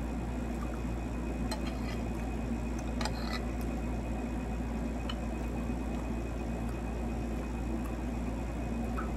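Metal spoon and fork clinking lightly against a ceramic plate a few times, over a steady low hum.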